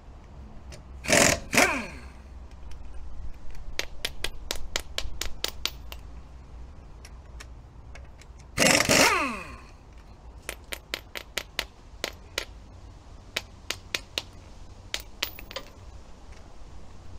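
Pneumatic impact wrench loosening car wheel bolts: two short bursts of the air tool, about a second in and again about nine seconds in, each falling in pitch as it spins down. Many light metallic clicks and taps between and after the bursts.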